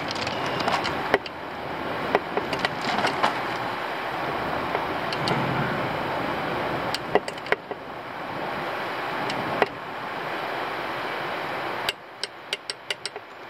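Hand tools working on an outboard's gear-case bolts, a socket and torque wrench being used. The sound is scattered clicks and knocks, with a quick run of about six clicks near the end, over a steady background hiss.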